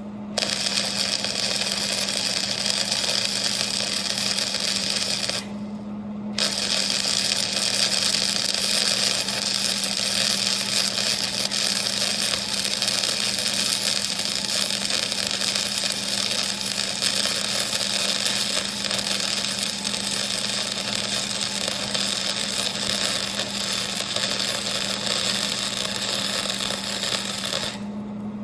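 Welding arc crackling and hissing as a bead is laid, with a steady hum underneath. The arc breaks off briefly about six seconds in, then runs for about twenty more seconds and stops just before the end.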